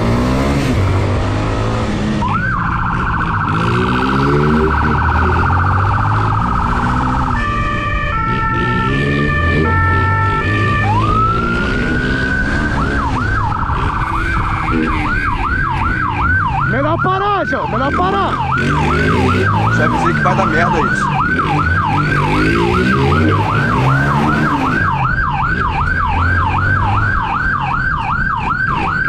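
Police motorcycle's electronic siren switching through modes: a fast warble, then a stepped two-tone hi-lo for about three seconds, a rising wail, and then a rapid yelp of about two and a half sweeps a second. The motorcycle's engine runs underneath, its revs rising and falling as it rides.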